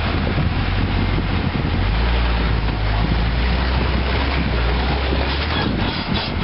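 Lifted Jeep Cherokee's engine working at low speed as it crawls up a rock ledge, a steady low hum that is strongest through the middle of the stretch, with a broad rushing noise over it.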